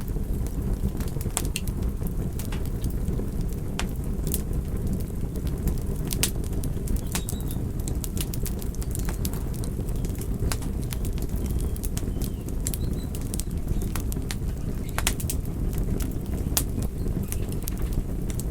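Wood fire crackling: frequent sharp pops and snaps at irregular intervals over a steady low rumble of burning flames.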